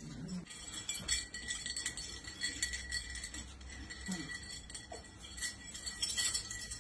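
Metal medals on ribbons clinking and jingling against each other as they are handled, a run of light, rapid high clinks.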